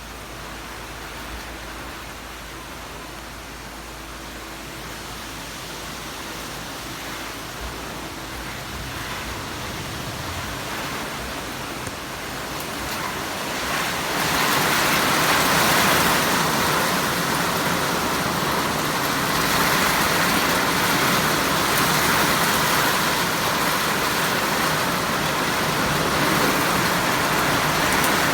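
Rain falling as an even hiss that swells sharply about halfway through into a heavy downpour.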